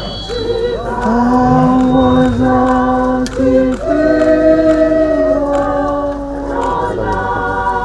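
A group of mourners singing slowly together, holding long notes.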